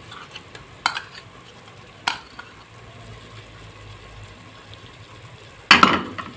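Spiced masala frying gently in a pot with a faint steady sizzle. A spoon knocks and scrapes while crushed pomegranate seed is emptied into it: a sharp click about a second in, another about two seconds in, and a louder clatter near the end.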